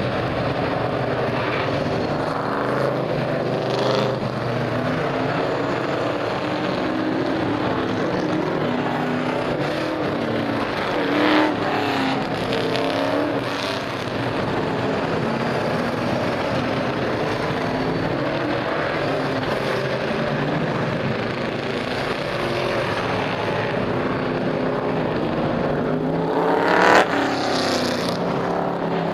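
Race car engines running on the track, with several cars passing close by. The loudest pass comes near the end.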